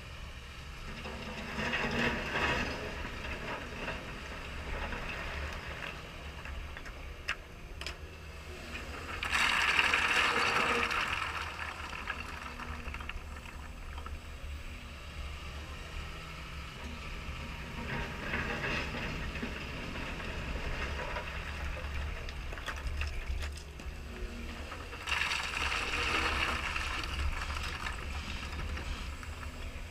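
CAT 320E excavator working a stone stockpile: four bursts of stone crunching and rattling as the bucket scoops and drops rock, the loudest about ten seconds in, over a steady low rumble.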